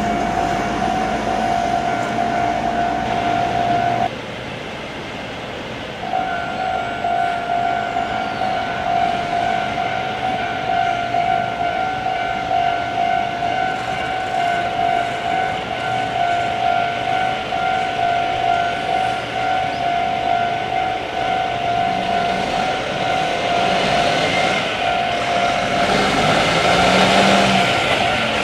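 Level-crossing warning alarm sounding a steady, rapidly repeating electronic tone, which breaks off for about two seconds around four seconds in. Near the end, the noise of an approaching heavy truck grows under it.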